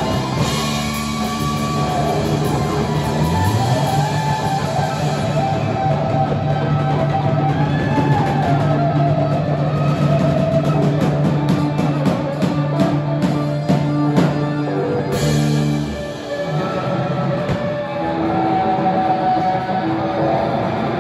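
Live rock band playing, with electric bass, electric guitar, drum kit and keyboard. About three-quarters of the way through, the bass notes and heavy drumming drop out, leaving lighter sustained guitar and keyboard tones.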